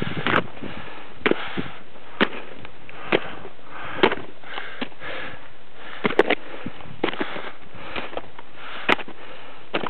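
Footsteps on snow and loose rock, about one a second, each with a sharp click, along with a walker's breathing.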